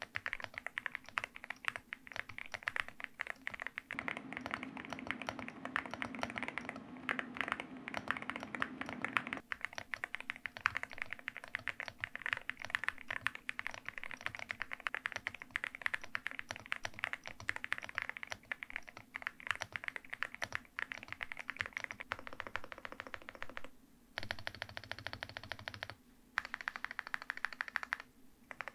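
Fast, continuous typing on an Akko MU01, a gasket-mounted wooden-case 65% mechanical keyboard with stock Akko V3 Piano Pro linear switches and PBT keycaps. The keystrokes run without letup, apart from two short breaks about three-quarters of the way through.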